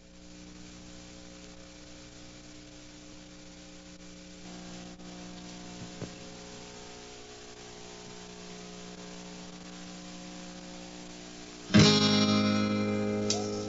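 Quiet, steady held notes, then near the end a loud strummed acoustic guitar chord that rings out and fades, with a few more picked notes after it.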